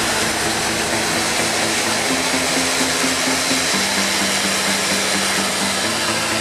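Dornier 328-110's turboprop engines running at taxi power: a steady loud whine and hiss with a low propeller hum that shifts slightly in pitch a couple of times.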